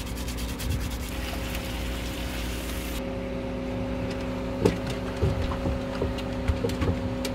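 A steady machine hum with several fixed tones runs throughout. For the first three seconds, food sizzles and crackles in a frying pan on a gas stove. After that come a few scattered knocks and thumps.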